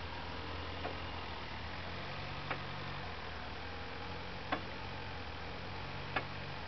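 Linde H30D diesel forklift engine running at a steady idle, with four short sharp clicks spaced about one and a half to two seconds apart.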